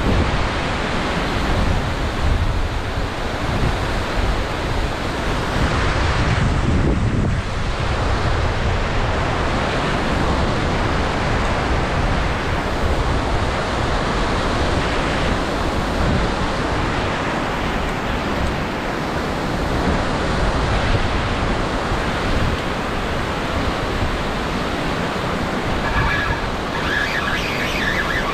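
Water pouring over a concrete spillway weir and churning below it, a steady loud rushing, with wind buffeting the microphone in a low gust about seven seconds in.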